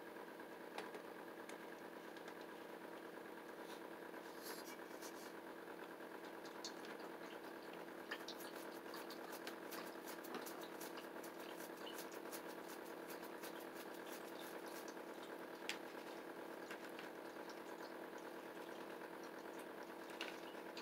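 A steady mechanical hum, with a small Yorkshire terrier working at a bowl over it: faint quick clicks, thickest from about eight to fifteen seconds in.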